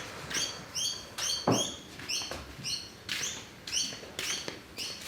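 Short high chirps repeating about twice a second, with a light knock now and then.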